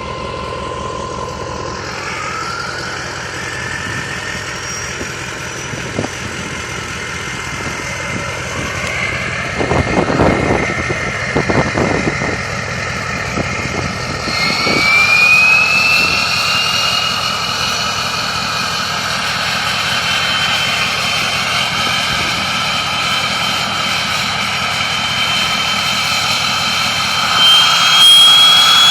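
Ford 6.0 Powerstroke V8 turbodiesel running with its variable-geometry turbocharger whistling, the whistle's pitch shifting as the turbo vanes move. A thin whistle glides up a couple of seconds in, a few short rough surges of engine noise come in the middle, then a stronger whistle sweeps up sharply about halfway and keeps climbing slowly, loudest near the end.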